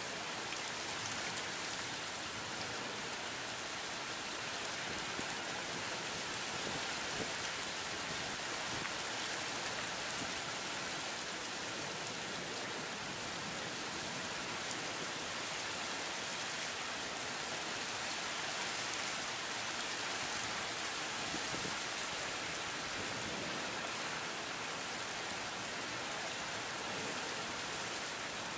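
Rain falling steadily from a thunderstorm, an even hiss of drops on surfaces with no thunder.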